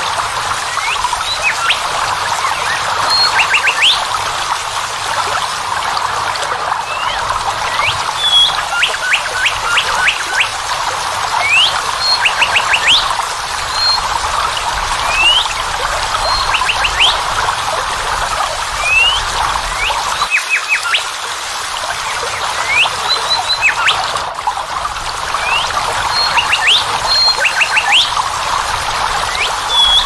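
Steady rush of a waterfall with birds chirping over it: short rising whistles and quick runs of three or four clipped notes, repeating every few seconds.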